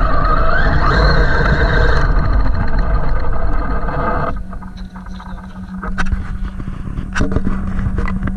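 Traxxas MAXX RC monster truck driving hard, its electric motor whining up and down over loud tyre and ground noise. About four seconds in the motor cuts off, leaving a steady low hum with a few sharp clicks and knocks.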